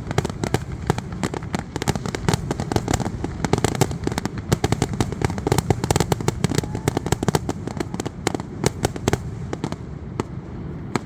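Fireworks going off in a rapid, continuous barrage of sharp bangs and crackles over a low rumble, thinning out near the end.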